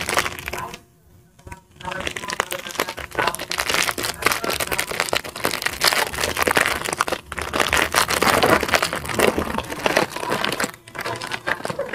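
Thin clear plastic bread bag crinkling and crackling steadily as a soft bun is handled and unwrapped inside it, with a brief pause about a second in.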